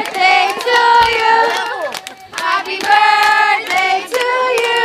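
A group of people singing and shouting together loudly, several voices holding notes at once, with hand claps cutting through.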